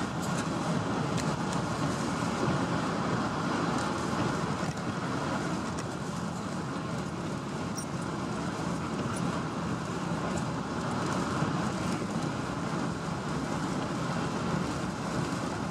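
Steady road noise inside a truck's cab as it drives slowly: the engine running and the tyres rolling on the road.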